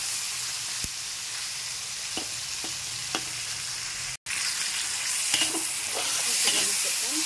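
Aromatics and sliced chillies stir-frying in hot oil in a wok: a steady sizzle, with a metal spatula scraping and clicking against the pan. The sound cuts out for an instant a little after four seconds in, then the frying comes back slightly louder.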